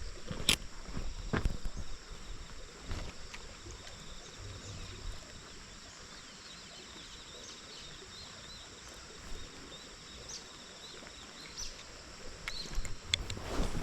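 Footsteps of someone walking outdoors, thudding for the first few seconds and again near the end, over a steady high-pitched insect chorus.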